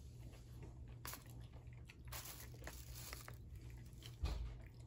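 Close-up chewing and mouth sounds of a person eating fried rice, with a metal spoon scraping and clicking against a plastic takeout tray in short bursts. A dull thump about four seconds in is the loudest sound.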